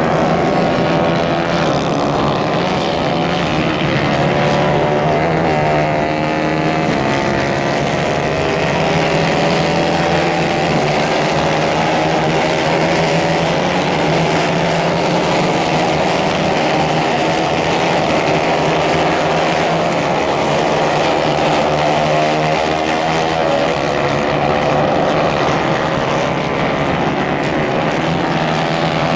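Several small 150 cc racing kart engines running around a dirt track, a continuous buzzing whose pitches rise and fall as the karts accelerate and lift off for the corners.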